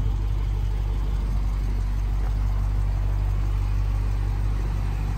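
2019 Dodge Challenger R/T Scat Pack's 6.4-litre HEMI V8 idling, a steady low rumble.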